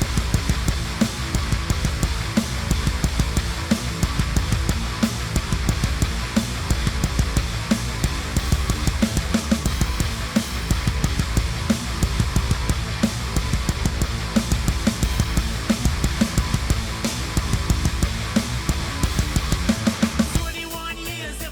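Heavy rock band track with a drum kit played along to it: fast, dense drumming over guitar and bass. About a second before the end the full band drops away to a quieter passage.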